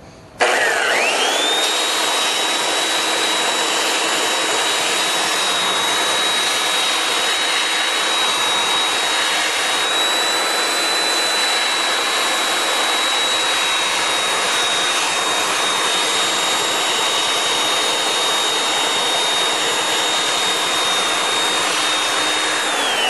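Handheld belt sander switched on about half a second in, its motor whine rising to a steady high pitch within a second over the hiss of the belt grinding an angled soft edge on a quarter-inch glass mirror. It is switched off near the end, the whine falling as it spins down.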